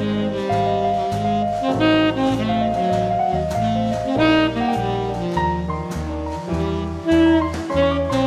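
Background instrumental jazz music, a melody over a bass line that moves in even steps of about two notes a second.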